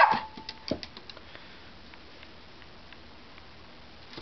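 A short squeak at the start and a few light taps, then quiet room tone for the rest.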